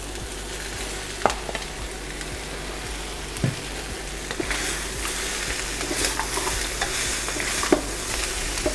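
Chicken pieces, peppers, onions and cashews sizzling in a hot wok while a wok spatula stirs and scrapes them, with a few light knocks. The sizzle grows louder about four and a half seconds in as the stirring picks up.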